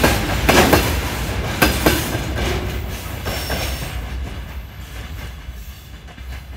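Freight train's gondola wagons rolling past, wheels clacking sharply over the rail joints over a low rumble for the first couple of seconds. Then the sound fades steadily as the last wagon moves away.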